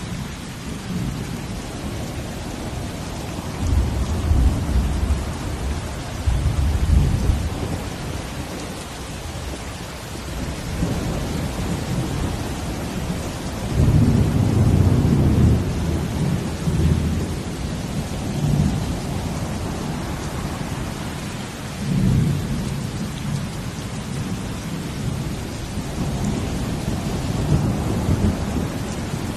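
Steady falling rain with ocean waves, a deep low rumble swelling and fading several times over the rain, loudest about halfway through.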